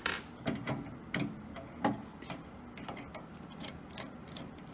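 Scattered light clicks and taps from hands and tools on the chrome grind-dial knob of a Grindmaster coffee grinder as its outer screws are removed. The clicks are sharper in the first two seconds, then come as fainter ticks.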